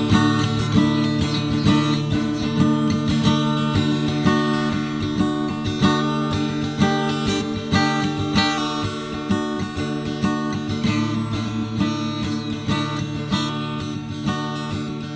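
Background music played on acoustic guitar, with plucked and strummed notes running steadily throughout.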